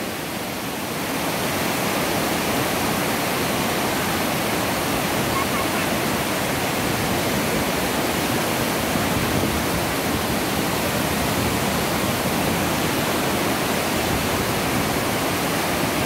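Water overflowing a dam spillway: a broad sheet of water pouring over a concrete weir and rushing down the chute in a steady, unbroken rush.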